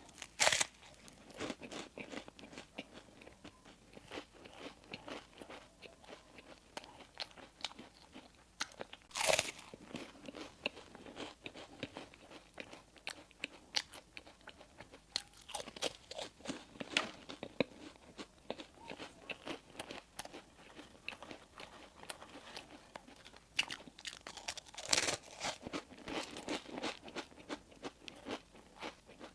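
Close-miked eating of bread and pastries: steady chewing and biting with crisp crunches, and a few louder crunchy bites, one about nine seconds in and another near the end.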